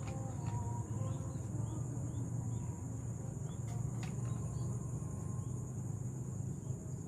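Insects, crickets or the like, chirring in a steady high-pitched band over a low steady rumble, with a few faint chirps and several sharp clicks.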